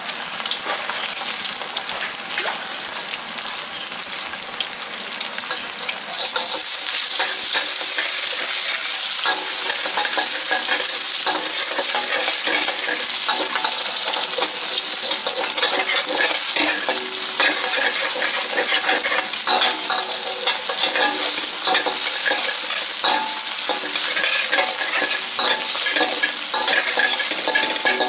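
Eggs and diced chicken nuggets sizzling in oil in a steel wok, with a metal spatula scraping and tapping against the wok as the eggs are broken up and scrambled. The sizzle grows louder about six seconds in.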